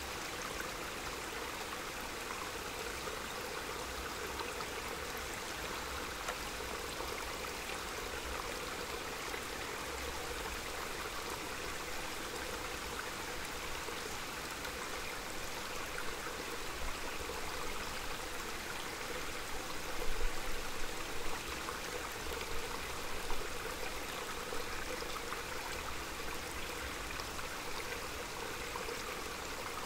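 Small mountain stream flowing steadily, an even rush of water noise, with a few brief low rumbles about two-thirds of the way in.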